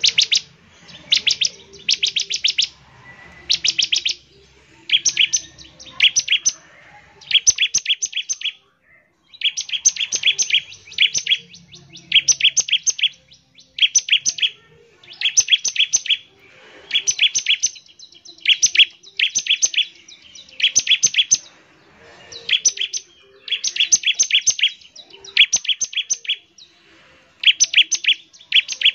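Bar-winged prinia (ciblek) singing: short bursts of rapid, sharp, high notes repeated about once a second, in the fast 'nembak ngebren' style.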